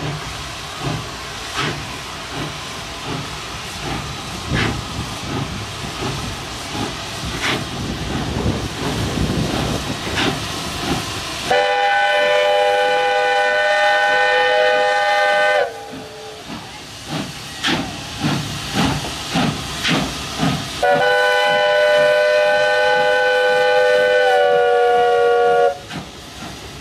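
Steam locomotives pulling away, their exhaust chuffs coming about one a second and quickening. Then a steam whistle gives two long blasts of about four seconds each, several tones sounding together, the second sagging in pitch just before it stops. Chuffing continues between the blasts.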